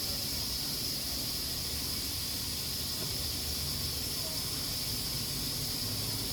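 Pressure cooker steadily hissing as steam vents through its valve, with a low rumble underneath.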